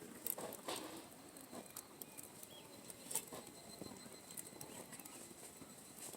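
Wood campfire crackling, with irregular small snaps and pops and one louder snap about three seconds in.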